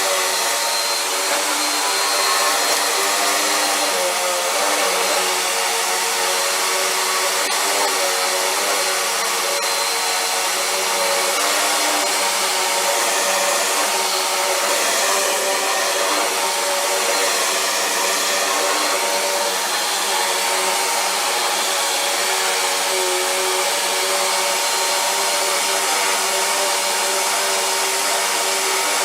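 Vacuum cleaner running steadily, its motor whine wavering a little in pitch now and then as the airflow changes.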